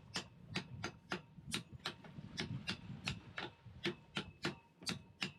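A steady train of short, sharp clicks or light taps, about four a second, evenly spaced.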